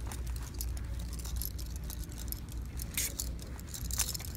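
Metal buckles, rings and snap hooks on a dog's pulling harness jingling and clinking in quick irregular clicks, sharpest about three and four seconds in, over a steady low rumble.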